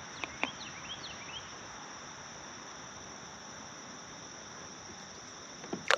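Steady high-pitched drone of a chorus of insects in the summer shoreline vegetation. A few short chirps sound in the first second and a half, and a single sharp knock comes near the end.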